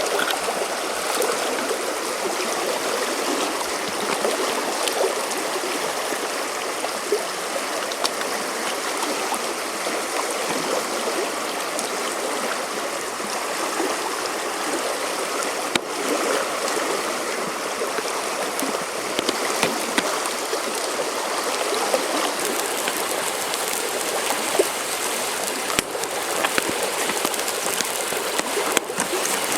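A river flowing, a steady rushing of water with a few faint sharp ticks.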